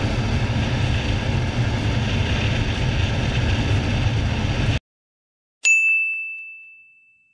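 Suzuki GN 125's single-cylinder engine running flat out near its top speed, with steady wind noise, cutting off abruptly a little before the end. A single bright bell-like ding follows, the loudest sound, ringing and fading away over about a second and a half.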